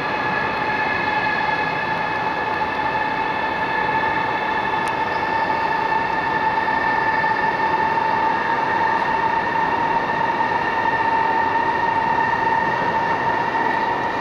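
High-speed electric train (China Railway CRH) standing at a platform, its electrical equipment giving a steady multi-pitched whine over a broad rushing hum. The pitch creeps slightly upward.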